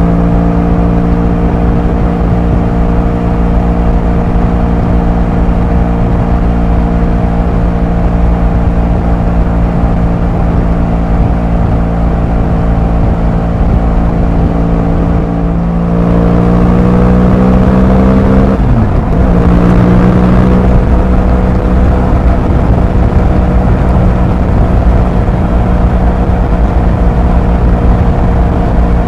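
Motorcycle engine and exhaust running at steady cruising revs, with wind noise underneath. About halfway through the revs climb for a couple of seconds, then drop sharply in an upshift and settle back to a steady cruise.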